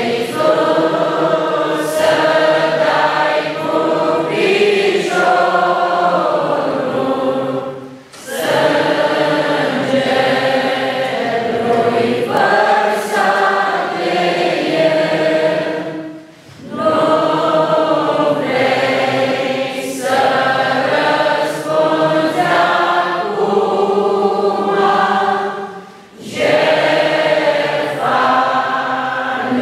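Church congregation singing a hymn together in phrases of about eight seconds, with three short breaks between phrases.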